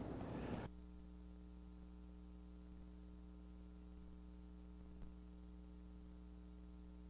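Faint, steady electrical mains hum, a low buzz with a stack of even overtones, carried on the church sound system's feed; louder room noise cuts away under a second in, leaving only the hum, with a small click near five seconds. The hum is what was thought to be feedback coming through line two.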